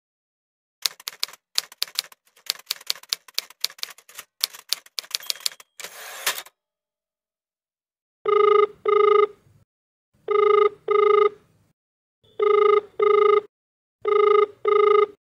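Typewriter keys clacking in quick, irregular strokes for about six seconds, ending in a short rasping sweep. Then, from about eight seconds in, a telephone ringback tone: pairs of short rings, about one pair every two seconds. This is the ring heard while calling a phone that is not being answered.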